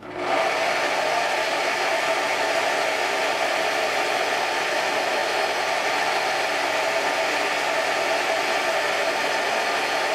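Small benchtop metal lathe running steadily, its motor and spindle whirring evenly as it takes a turning cut on a brass workpiece.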